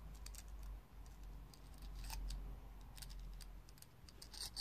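Faint small metallic clicks and taps as a bit is swapped and fitted into a small screwdriver, with a louder cluster of clicks near the end.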